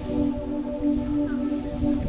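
Background music: a repeating figure of short, steady pitched notes, with a low rumbling noise underneath.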